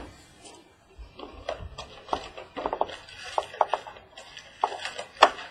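Trading card box and pack packaging being handled and opened: a scatter of short crinkles, taps and clicks, with one sharper click near the end.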